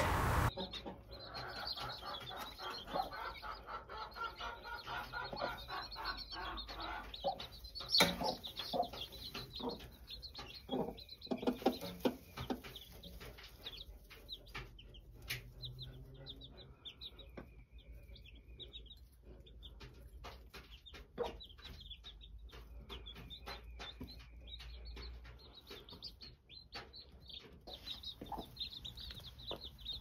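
Buff Orpington mother hen clucking among her chicks while the chicks peep, with scattered soft taps and one sharp click about eight seconds in.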